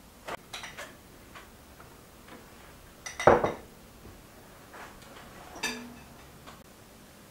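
A metal spoon clinking and tapping against a small glass bowl as sauce is spooned onto plates: scattered light clicks, a heavier knock about three seconds in, and a ringing clink near the end.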